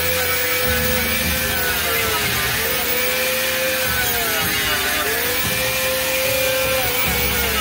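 Electric angle grinder with an abrasive disc grinding the wooden edge of a skateboard deck. Its motor whine sags in pitch several times as the disc bites into the wood, then recovers.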